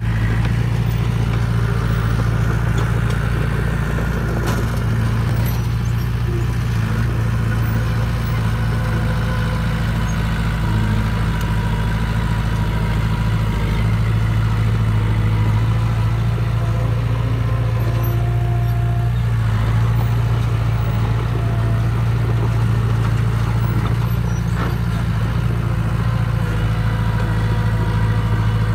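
Small crawler bulldozer's diesel engine running steadily as the machine pushes soil, an even low drone without breaks.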